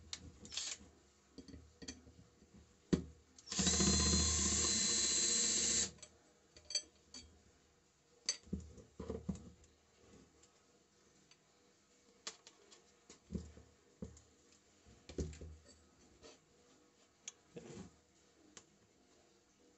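12-volt cordless drill running steadily for about two and a half seconds, a little over three seconds in, driving a screw into a fan motor's metal housing. Short clicks and knocks of handling metal parts come before and after it.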